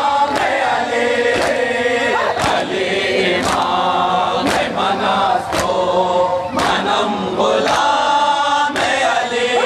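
A crowd of male mourners chanting a noha (Shia lament) in chorus. A sharp unison strike lands about once a second, the beat of matam, hands striking chests in time with the chant.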